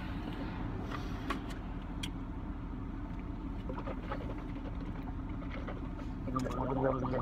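Steady low hum inside a truck cab. About six seconds in, a man lets out a long, low belch lasting over a second.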